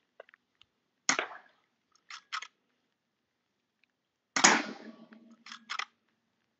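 Two shots from a Weihrauch HW100 .22 pre-charged air rifle about three seconds apart, the second with a longer tail. About a second after each shot come two quick metallic clicks as the side lever is worked to load the next pellet.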